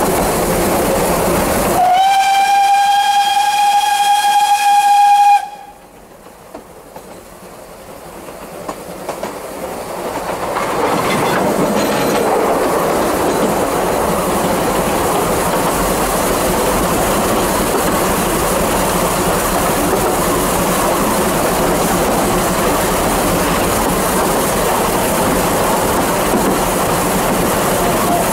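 Narrow-gauge steam locomotive's whistle blowing one long steady note for about three and a half seconds over the running noise of the train on the track. Just after the whistle the train noise drops away suddenly, then builds back up over several seconds to a steady run.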